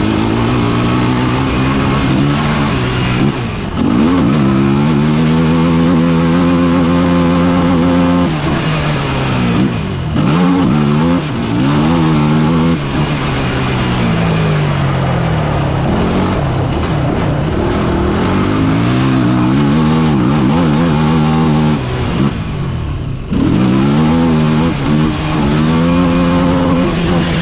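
KTM EXC enduro motorcycle engine, heard from on board, revving up through the gears and backing off again several times as the bike accelerates and slows, with sharp drops in revs about eight seconds in and again near the end.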